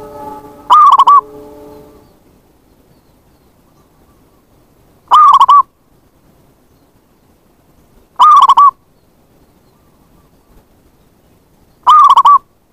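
Zebra dove (perkutut) cooing: four short, loud, trilling coos spaced a few seconds apart.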